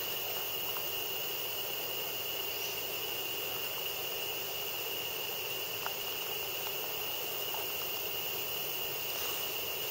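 Tropical rainforest ambience: a steady, high-pitched insect drone over an even hiss, with a couple of faint ticks.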